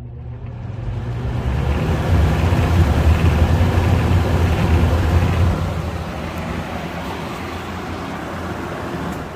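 20-inch Galaxy box fan, model 3713, starting up, heard from close by the motor: motor hum and rushing air build over the first two seconds. A strong low rumble lasts until about five and a half seconds in, then the fan settles into a slightly quieter steady run.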